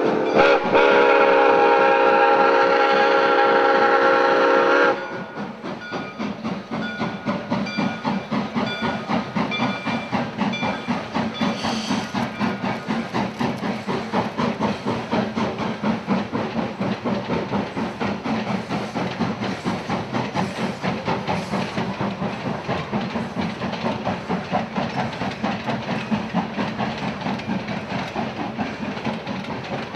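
Soo Line #1003, a 2-8-2 Mikado steam locomotive, sounds a long chime-whistle blast that cuts off sharply about five seconds in. The passing freight train follows with a steady, rapid rhythmic beat of exhaust and wheels clacking over the rail joints.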